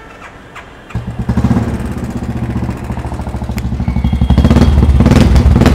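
Royal Enfield single-cylinder motorcycle engine starting about a second in and idling with an even, rapid thump, then revved up several times near the end.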